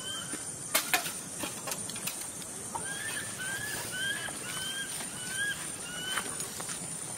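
A series of about six short, high chirping animal calls, each rising then leveling, spaced a little over half a second apart through the second half. Two sharp clicks come about a second in, and a faint steady high whine runs underneath.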